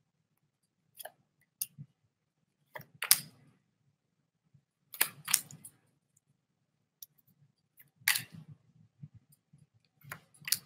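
Tarot cards being shuffled and handled: a series of sharp card snaps and slaps, several in quick pairs, every second or two.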